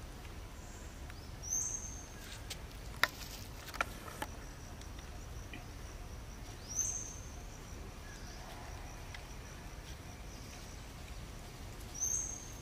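Outdoor ambience with a steady high insect drone. A short, high call rises and then holds three times, about five seconds apart, and there are a few sharp clicks in the first half.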